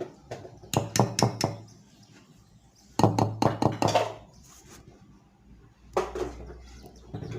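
Kitchenware knocking in quick clusters of three or four strikes, as cake batter is emptied from a bowl into a cake tin.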